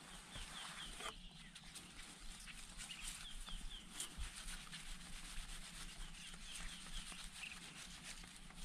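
A small bird calling: runs of four or five quick, high, down-slurred chirps, repeated about every three seconds, over a faint steady hiss.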